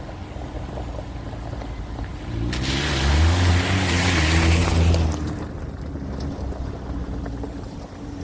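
Suzuki Jimny JB74's 1.5-litre four-cylinder engine running, then revving up as the vehicle splashes through water, with a loud rush of spray from about two and a half seconds in until about five seconds in. Afterwards the engine settles back to a steady run.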